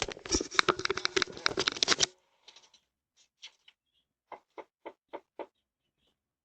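Rapid clattering and knocking heard through a doorbell camera's microphone, stopping abruptly about two seconds in. After it come a few soft clicks, about four a second.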